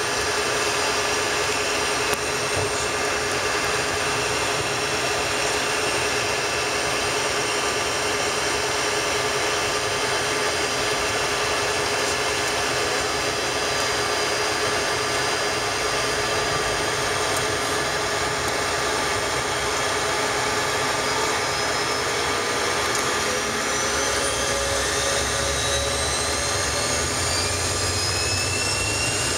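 Bombardier CRJ-200's General Electric CF34 turbofans heard from inside the cabin: a steady engine whine over a constant rush of cabin noise. From about 21 seconds in, the whine starts rising in pitch as the engines spool up for take-off.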